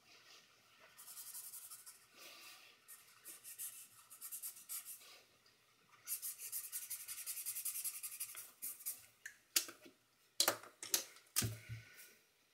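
Felt-tip pen scratching over paper in quick strokes, in three spells. Near the end come several sharp taps and a dull knock of pens being set down and picked up on a wooden table.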